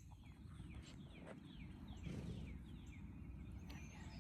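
A bird calling faintly: a quick series of short falling chirps, about two to three a second, over a low outdoor rumble.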